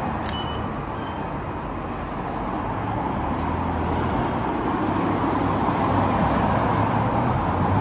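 Steady vehicle noise: a low rumble under a broad hiss that slowly grows louder, with a couple of faint ticks.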